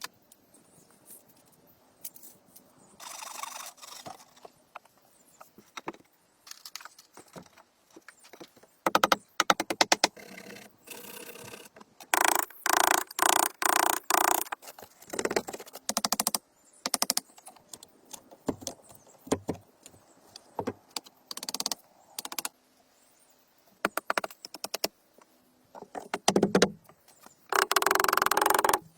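Building work with hand tools: irregular knocks, rattles and scrapes, with louder stretches of scraping about a third of the way in, in the middle and near the end.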